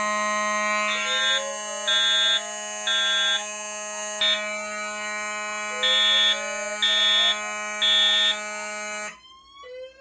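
Several fire alarm horns and sirens sounding together in alarm: steady tones, slow rising sweeps, and a horn pulsing in groups of three (the temporal-three evacuation pattern), triggered by a tripped photoelectric smoke detector. All of it cuts off abruptly about nine seconds in as the alarm panel is silenced, leaving only faint rising sweeps.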